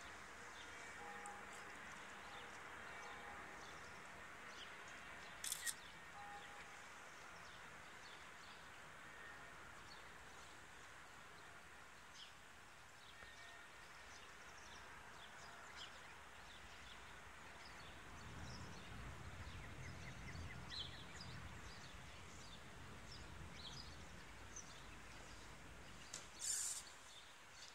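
Faint lakeshore ambience with scattered small bird chirps. About two-thirds of the way through, a low rumble sets in as the passenger boat's engine nears the pier. Two short sharp knocks stand out, one early and one near the end.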